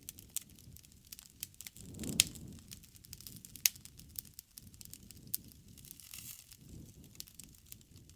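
Wood fire crackling: scattered sharp pops and snaps over a low rumble, the loudest pop about two seconds in.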